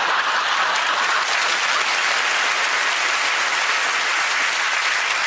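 Studio audience applauding steadily, a dense wash of clapping.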